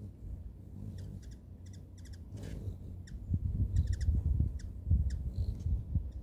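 Hummingbirds giving short, high chip notes, many in quick pairs and little runs, over a low rumble that swells and fades and is the loudest sound.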